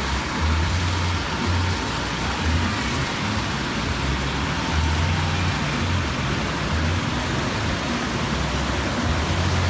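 Steady rushing noise of a machine-made surf-pool wave breaking and peeling along the pool, with wind buffeting the microphone in uneven low rumbles.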